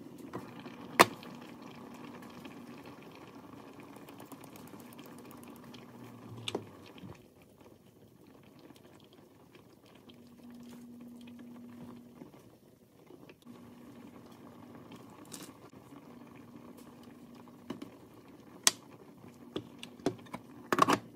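Liquid simmering and bubbling in a small saucepan on an electric cooktop, with a loud sharp clink about a second in and a few more clinks and taps near the end, from the pan's lid and the utensils against the pan.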